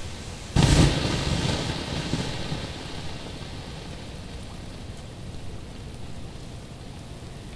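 An ice-laden tree branch breaks and crashes down about half a second in. The crash and the rattle of breaking ice trail off over the next two seconds, over a steady background hiss.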